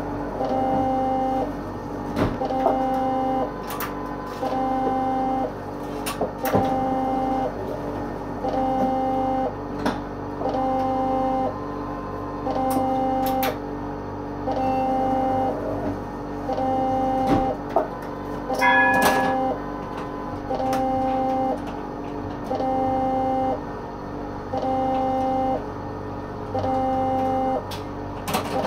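Electronic warning beeper on a tram sounding a steady repeating beep, about one every 1.3 seconds, with light clicks and a short higher chime about two-thirds of the way through.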